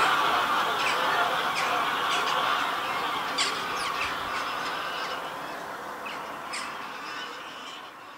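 A large flock of wild geese honking together: a dense chorus of overlapping calls with single honks standing out. It grows steadily fainter.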